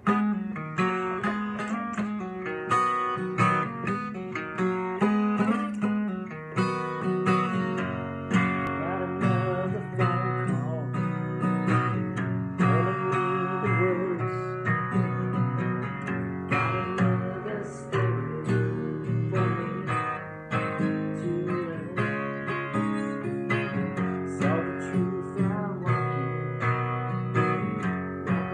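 Acoustic guitar played by hand, strummed chords and picked notes in a steady rhythm.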